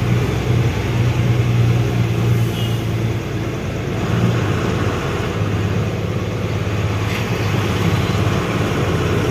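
Truck engine running steadily while driving, with continuous road noise.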